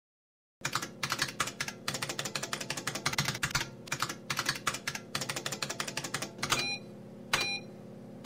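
Typing sound effect: rapid, irregular key clacks. Near the end come two sharper strokes, each with a brief ringing tone.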